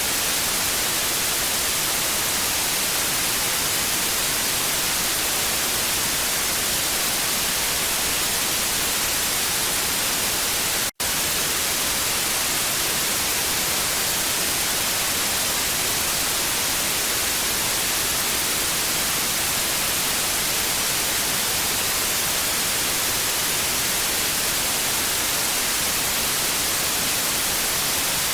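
Steady, bright hiss of untuned analog television static, weighted toward the high end. It cuts out for a split second about eleven seconds in.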